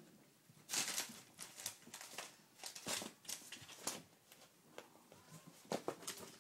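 Newspaper rustling and crinkling in short, irregular bursts as kittens scamper over and through the sheets.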